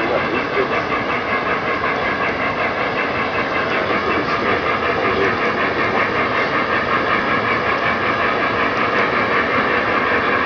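O-gauge model freight train of PFE reefer cars rolling past on three-rail track: a steady rolling rumble of metal wheels with a fine, even clatter.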